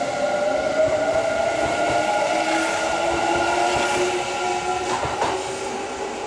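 Kintetsu limited express electric train accelerating out of the station: its whine of several tones climbs slowly in pitch as it gathers speed, with wheel and rail noise. It fades a little as the last car passes, with a couple of short knocks near the end.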